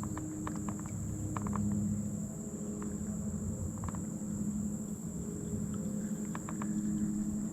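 A steady high-pitched chorus of summer insects, with a few small clicks and taps scattered through it.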